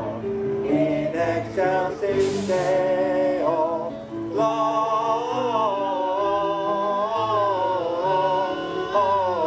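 Music: a song with a sung melody over held bass notes.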